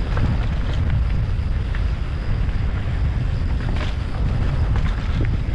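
Wind rushing over the microphone of a mountain bike ridden fast down a dirt jump line, a steady low rumble with scattered clicks and rattles from the bike.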